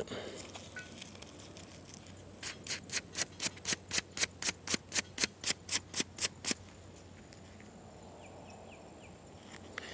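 A small handheld brush scrubbing dirt off the metal head of an old shotgun shell: a quick run of about twenty brisk strokes, about five a second, starting a couple of seconds in and stopping after about four seconds.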